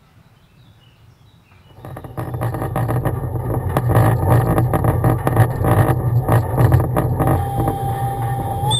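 A 600 mm narrow-gauge quarry train running close by: loud rumbling and clattering that comes in suddenly about two seconds in. A thin steady tone joins near the end and rises slightly.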